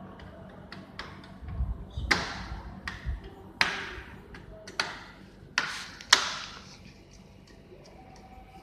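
A series of sharp taps and knocks on hard objects, about five louder ones between two and six seconds in, each ringing briefly; the last is the loudest.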